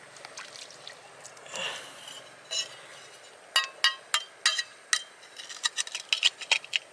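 Hard oyster shells clinking and knocking, with a couple of soft wet scrapes early on and a quick run of sharp clicks in the second half.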